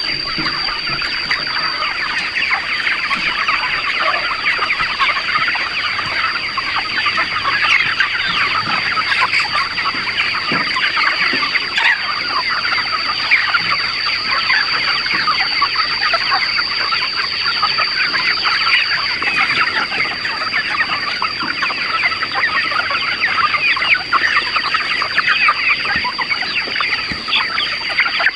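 A large flock of chickens calling, many birds at once in a dense, continuous chatter of clucks and peeps, over a steady high-pitched whine.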